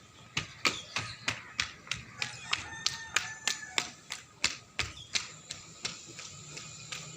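A quick, even series of sharp taps or claps, about three a second, growing fainter after about five seconds.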